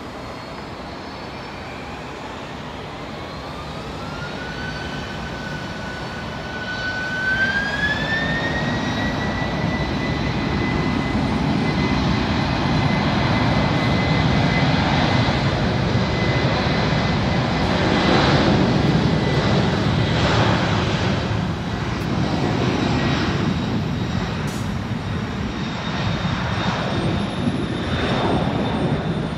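Jet engines of a FedEx twin-engine jet spooling up to takeoff power: a whine rises in pitch over several seconds and then holds steady. Loud steady rumble and rush of the engines follows as the jet rolls down the runway.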